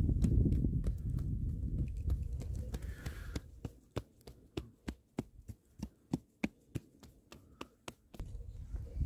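Hands patting and pressing a round of milla bread dough flat on a cloth, a run of short soft slaps about three a second in the second half, after a low rumble in the first few seconds.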